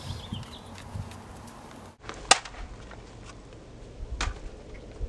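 Two sharp cracks about two seconds apart, the first much louder, over faint outdoor background noise.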